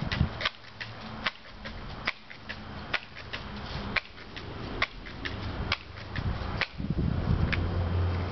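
Crosman Pumpmaster 760 multi-pump air rifle being pumped up between shots: a sharp click at each stroke, evenly spaced just under a second apart, about nine strokes, over a low hum.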